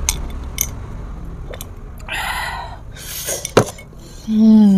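A small drinking glass set down on the table with a sharp clink about three and a half seconds in, after a couple of breathy exhales following a swallowed shot of liquor. Near the end comes a short hummed vocal sound, the loudest thing here.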